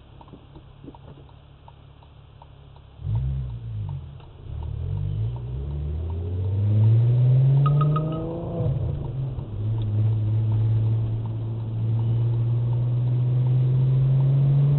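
Car engine heard from inside the cabin, pulling away and accelerating, its pitch climbing, dropping once about eight seconds in and climbing again. Before it starts moving, the first three seconds are quiet apart from a soft regular ticking.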